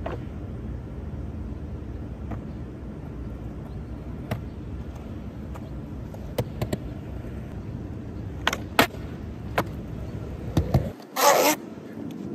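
Skateboard wheels rolling over rough asphalt with a steady low rumble, broken by sharp clacks of the board's tail popping and the board landing, twice in quick succession about two thirds of the way in. Near the end the rumble stops and there is a brief loud scrape.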